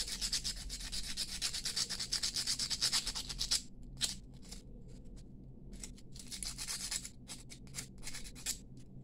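A small folded piece of sandpaper rubbed back and forth by hand along a thin brass bangle: quick, even strokes, about seven a second, for the first three and a half seconds, then short scattered strokes with gaps.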